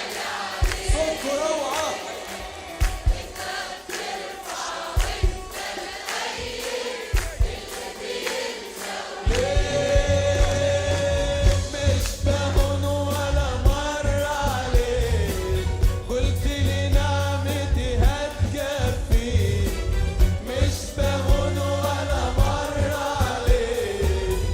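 Christian worship song with group singing over an instrumental backing with a regular beat. About nine seconds in, a heavy bass comes in and the music gets fuller and louder.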